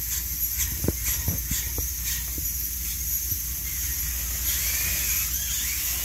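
Small electric drive motors of a VEX robot whirring as it pulls its forks out and reverses away, over a steady hiss. A few light knocks come in the first two seconds or so, and a brief rising-and-falling whine a little past the middle.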